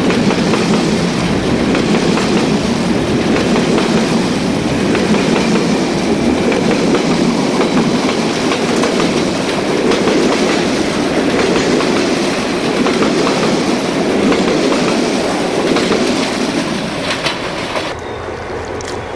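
Train rolling past, its wheels clattering over the rail joints in a steady, loud run. The sound becomes quieter near the end.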